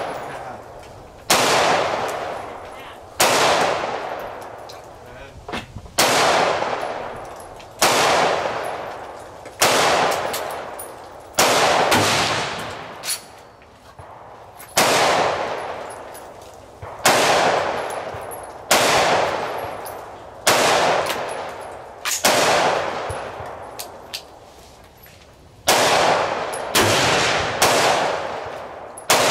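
A string of rifle shots, about sixteen in all, fired roughly every one to two seconds, each a sharp crack followed by a long echo that fades out.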